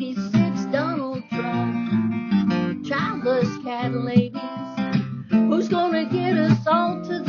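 A song with strummed acoustic guitar and a voice singing over it.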